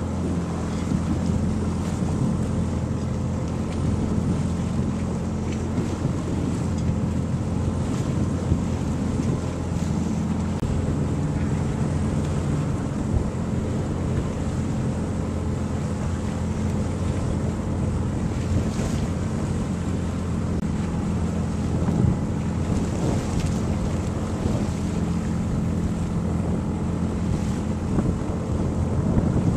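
A boat's engine running at a steady, even drone, under the rush of water along the hull and wind buffeting the microphone.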